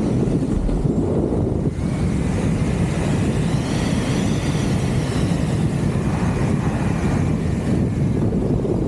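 Steady heavy wind buffeting on the camera microphone from fast airflow during a speedriding descent on skis, with skis sliding over snow. A faint wavering whistle comes and goes in the middle.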